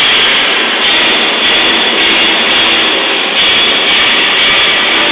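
Rotary swaging machine running with a loud, steady mechanical din as a cartridge heater is worked through its hammering dies.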